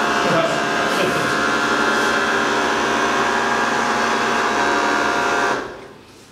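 A pack of small bristlebot brush robots buzzing across a tiled floor: their vibration motors whir together as a steady hum of many close pitches. The hum dies away near the end.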